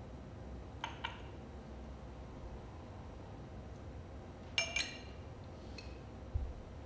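Faceted glass tumblers clinking as one is set onto a stacked tower of glasses: two light clinks about a second in, a louder ringing pair a little before five seconds, then a faint one. A short dull thump near the end.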